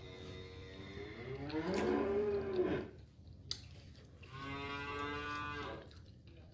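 A cow mooing twice: a long call that rises and falls, then a second, steadier one about a second and a half later.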